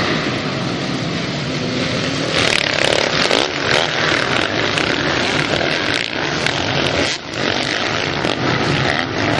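A pack of motocross bikes racing off the start, many engines revving together, growing louder about two and a half seconds in.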